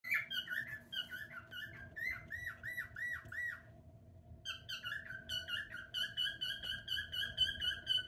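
Cockatiel singing: a quick string of warbled, whistled notes, breaking off briefly about four seconds in, then resuming as a fast run of evenly repeated notes.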